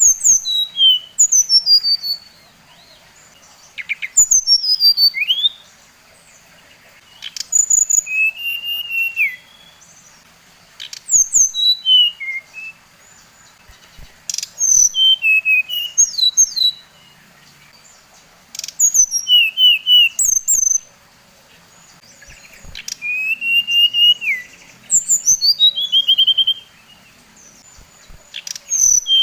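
Brown-chested jungle flycatcher (SRDC) singing in repeated phrases, one every three to four seconds. Each phrase is a quick run of clear whistled notes that mostly slide down from high to lower pitch.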